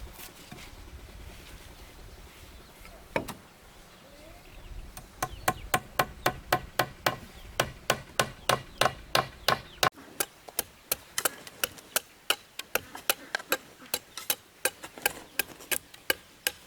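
A single knock, then from about five seconds in a steady run of sharp strikes, about three a second, each with a short ring.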